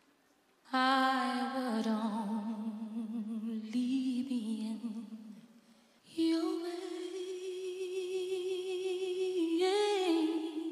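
A woman singing into a microphone in two long held notes with vibrato. After a short break about halfway through, the second note comes in higher and bends upward near the end.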